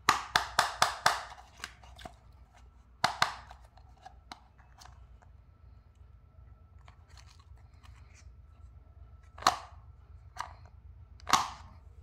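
Small plastic toy microwave clicking and knocking as it is handled and its door is opened: a quick run of about six sharp plastic clicks at the start, two more about three seconds in, and three single clicks near the end.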